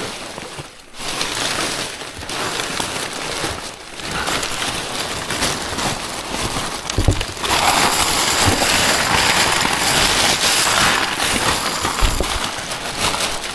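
Paper, cardboard and plastic bags rustling and crinkling as hands dig through a full wheelie bin, louder in the second half, with a couple of dull knocks.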